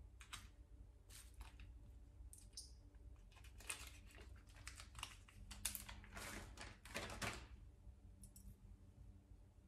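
Faint scattered clicks and rustles of costume jewelry being handled, small metal pieces tapping together as earrings are set down and a necklace is taken in hand, with a few longer rustles around six to seven seconds in.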